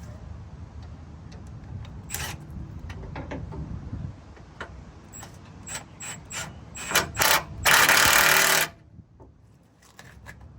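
A handheld power tool runs in one loud burst of about a second near the end, after several sharp metallic clicks and clinks of tools and parts being handled.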